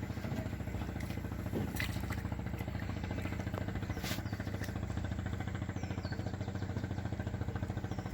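An engine running steadily with a fast, even putter, and a couple of light clicks over it.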